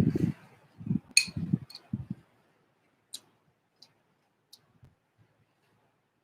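A person chewing cereal for about two seconds, then a few sparse, sharp light clicks.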